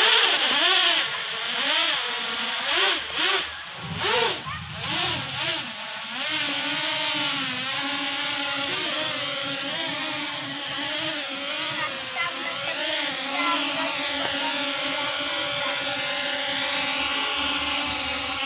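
Small toy quadcopter drone's electric motors and propellers whining, the pitch swooping up and down as the throttle changes, then settling into a steadier hum in the second half.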